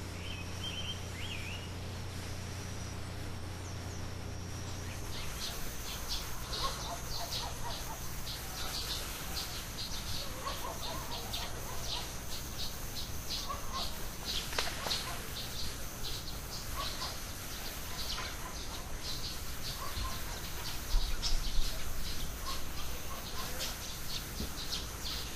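Outdoor ambience of birds chirping in quick, repeated calls over a steady high insect-like drone. A low steady hum in the first five seconds stops, and a brief low thump comes about 21 seconds in.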